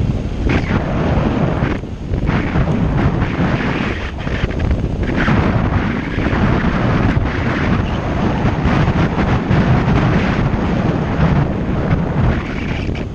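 Wind buffeting the microphone of a bicycle-mounted camera while riding at speed: a loud, gusty rumble that surges and dips every second or two.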